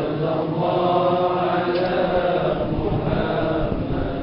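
Men's voices chanting together in a slow, drawn-out melody, a congregational recitation.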